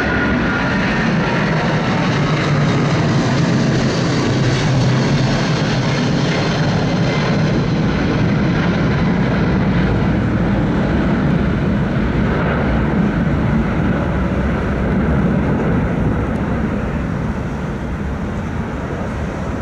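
Twin jet engines of a Boeing 777 at takeoff thrust, climbing out overhead: a steady, loud low rumble. In the first couple of seconds a faint whine falls slightly in pitch. The sound eases a little toward the end as the jet recedes.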